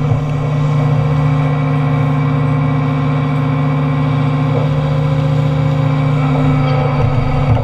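Doosan Solar 255 LC-V excavator's diesel engine and hydraulics running steadily, heard close from on the machine as it swings with its timber shear raised: an even, low drone.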